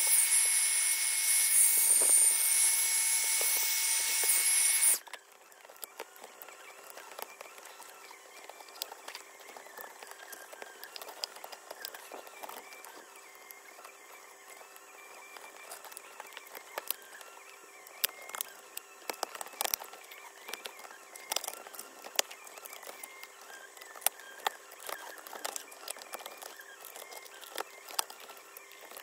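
A hot-air tool runs steadily with a whine for about five seconds, softening the adhesive under a Surface Book base cover, then is switched off abruptly. After that come faint, irregular clicks and scrapes as the glued aluminium cover is pried up from the base.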